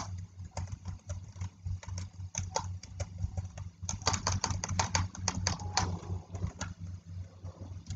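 Typing on a computer keyboard: irregular runs of key clicks with short pauses, the quickest run about four seconds in, over a steady low hum.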